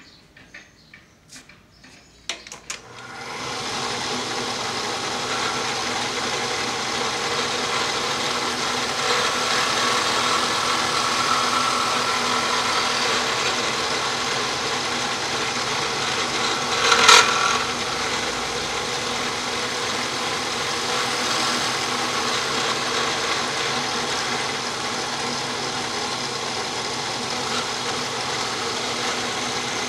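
An industrial electric drill, used as the spindle of a homemade mill-lathe, starts after a few light clicks and runs steadily with a motor whine while its twist bit works a white plastic coil bobbin clamped in a vise. About halfway through there is a short, louder scrape.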